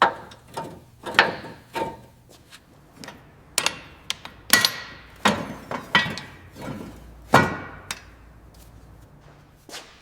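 A series of irregular sharp knocks and clanks, about a dozen, some with a brief metallic ring, like tools and parts striking metal during car work.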